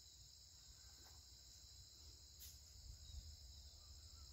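Faint, steady chirring of crickets, a high continuous drone with nothing else loud over it.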